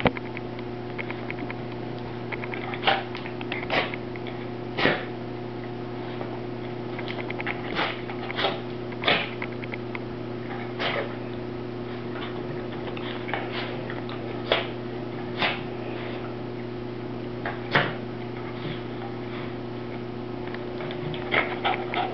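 A puppy sneezing in short, sharp bursts, about ten times at uneven intervals, with lighter ticking in between, over a steady low hum.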